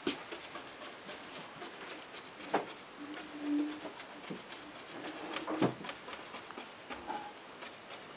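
Scattered light taps and clicks of handling, the two loudest about two and a half and five and a half seconds in, with a brief low steady tone around three seconds in.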